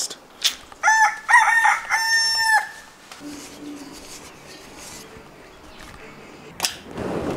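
A rooster crowing once, about a second in: a few short stepped notes ending on a longer held note.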